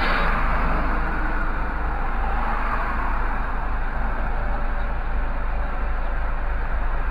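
Car engine idling: a steady low rumble with a noisy haze of traffic over it, with no distinct knocks or voices standing out, heard from inside the stopped car.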